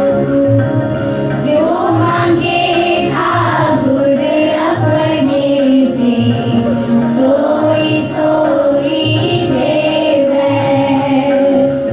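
A group of pupils sings a shabad, a Sikh devotional hymn, over a steady held drone and a regular drum beat. The voices come in about a second and a half in, after the drone and drum.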